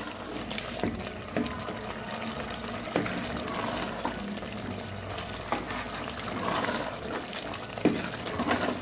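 A wooden spoon stirring a wet turnip and spinach mixture in an open pressure cooker pot, with a steady sizzle as the mixture is fried down until the oil separates. The spoon knocks against the pot now and then.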